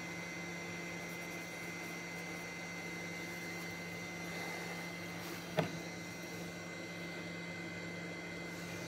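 Steady electrical hum with a thin high whine and a light hiss, broken once by a short click about five and a half seconds in.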